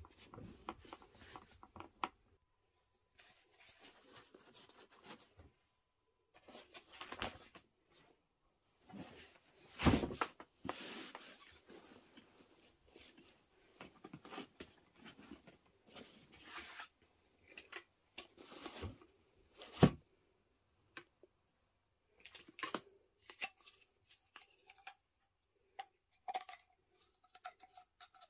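Clothes and nylon packing cubes being handled in an open suitcase: irregular fabric rustling and crinkling, with a few sharper knocks, the loudest about ten and twenty seconds in.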